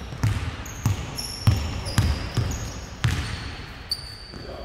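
A basketball being dribbled on a hard sports-hall floor: about five heavy bounces roughly half a second apart in the first three seconds, echoing in the hall. Short high sneaker squeaks on the court come between the bounces and again near the end.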